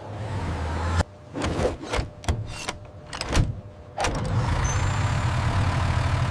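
Truck engine sound running with a steady low rumble, cut off after about a second by a run of sharp clanks and knocks, and rumbling steadily again from about four seconds in.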